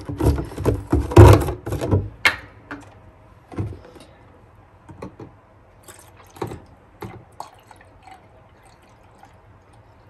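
Plastic clicks and knocks as a bottle of floor cleaner is uncapped and handled over the water tank of a Dyson V15 Submarine wet-roller head, a dense clatter in the first two seconds. Then scattered single taps and liquid cleaner pouring into the tank.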